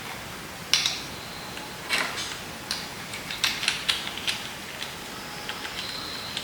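Scattered clicks and light clatter of a small battery grinder and its plastic guard and parts being handled and fitted by hand, with the motor not running.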